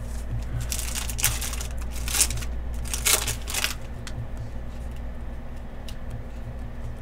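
Foil wrapper of a Panini Prizm basketball card pack crinkling and tearing as the pack is opened and the cards are slid out, with a run of crackly rustles about one to four seconds in. Softer rustling of the card stack being squared and fanned follows.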